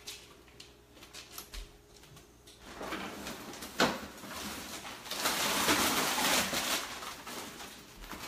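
A faint steady hum, then a knock about four seconds in and a couple of seconds of loud rustling as a big plastic bag of frozen chicken breasts is handled.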